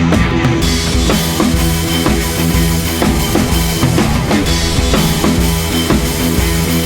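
Rock background music with a full drum kit and a steady beat.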